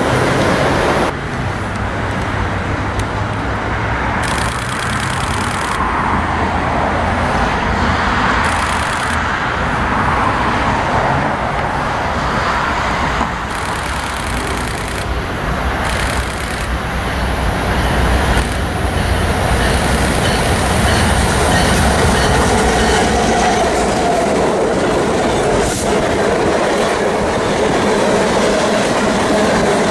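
BNSF freight train of flatcars loaded with military vehicles passing close by: a steady loud rumble and clatter of wheels on the rails, changing abruptly about a second in.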